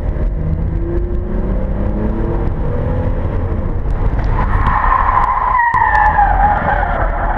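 Car engine running hard with a steady low rumble; about four seconds in the tyres begin to squeal in a skid, the squeal sliding down in pitch and lasting to near the end.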